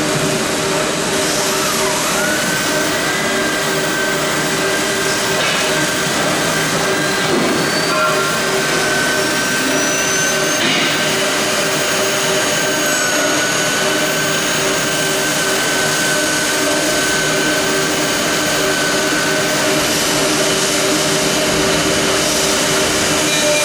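Two-spindle CNC router with its spindle running and routing into MDF: a steady rushing machine noise with a high whine that shifts pitch slightly now and then.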